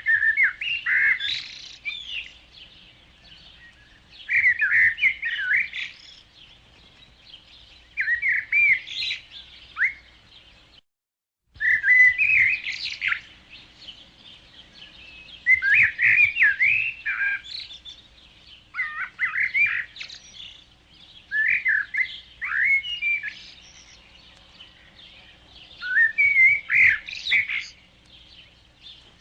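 A songbird singing: short warbling phrases, each a second or two long, repeated with brief pauses. The sound cuts out completely for about half a second around eleven seconds in.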